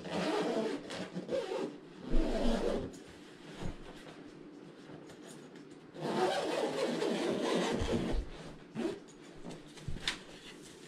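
Zipper on a fabric box spring cover being pulled closed in two long scraping runs, the first in the opening seconds and the second from about six seconds in, with fabric rubbing and a couple of light knocks against the wooden frame.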